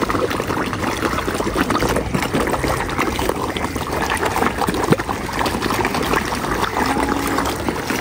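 Water splashing and trickling, a steady busy patter of many small splashes at the surface.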